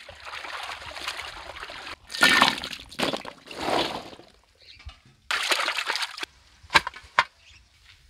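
Water sloshing and splashing as hands wash cut bitter gourd pieces in a water tank. After an abrupt cut come louder rustling, clattering bursts of wet gourd pieces being tipped into a metal pan, then two sharp snaps near the end.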